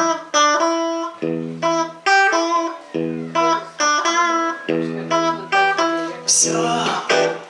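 Guitar playing a song's introduction: notes and chords picked one after another, each ringing on, with a fuller strum about six and a half seconds in.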